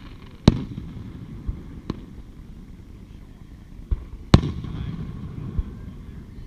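Aerial fireworks shells bursting: a loud bang about half a second in and another about four seconds later, each followed by a low rolling rumble, with several fainter thumps between them.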